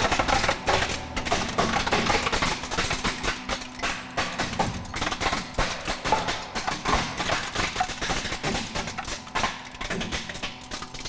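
Plastic and die-cast parts of a toy fire truck cracking and snapping under a hydraulic press ram, in a dense, irregular run of crunches and clicks, slowed down, over background music.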